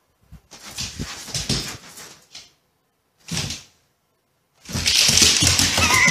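A dog whining and grumbling in uneven bursts with silent gaps between, louder near the end with a high, wavering whine.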